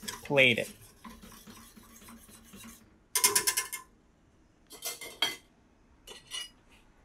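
Wire whisk stirring sauce in a stainless steel saucepan, the metal wires clicking and scraping against the pot. About three seconds in comes a short loud rattle of rapid clinks, with a few shorter clusters of clinks after it.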